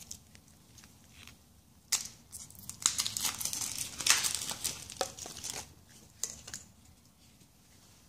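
Shiny plastic wrapper crinkling as it is pulled off a compressed magic towel cube, in a busy run of crackles starting about two seconds in and dying away after about six seconds.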